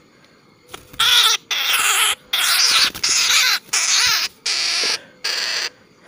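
A barbet caught in a snare giving a rapid series of about seven loud, harsh distress squawks, each a fraction of a second long, stopping just before the end.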